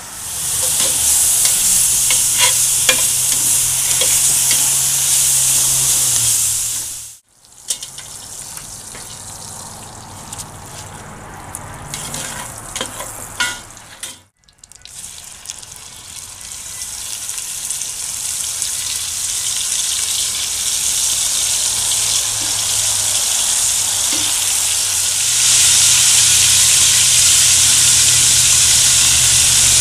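Bacon fat sizzling in a cast-iron Dutch oven as bacon and then cubes of beef stew meat fry and sear in it; a steady, loud sizzle. It cuts off abruptly twice. The quieter middle stretch holds a few clicks of a slotted spoon against the pot. The sizzle then builds again and is loudest near the end as the beef browns.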